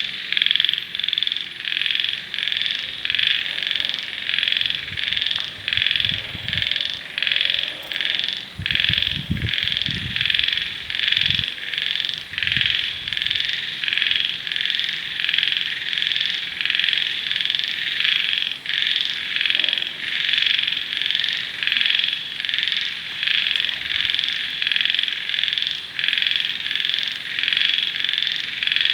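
Frogs calling: a steady, rhythmic train of pulsing calls, about two to three a second, that repeats without a break.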